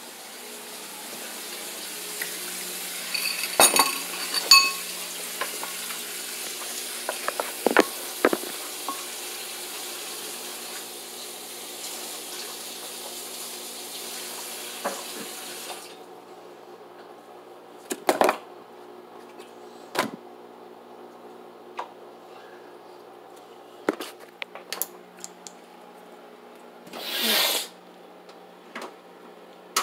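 Kitchen tap running into a sink, with pots and cutlery clinking and ringing; the water cuts off suddenly about halfway through. After that come scattered knocks and clatters of dishes.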